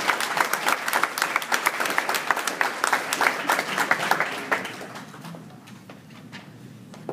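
Audience applauding a performer's bow at the end of a piece, dying away about four and a half seconds in.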